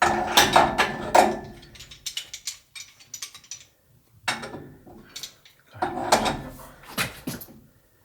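Rapid metallic clicking and clanking of plumbing tools working on heating-pipe fittings, in three bursts with short pauses between.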